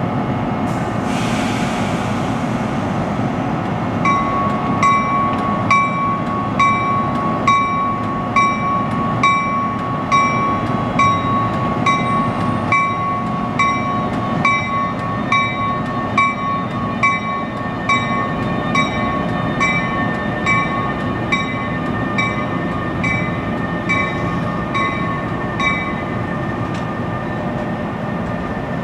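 NJ Transit ALP-46 electric locomotive and train departing. A short hiss of air comes about a second in, then the locomotive's bell rings steadily about once a second, stopping a few seconds before the end, over the train's steady low rumble as it starts to roll.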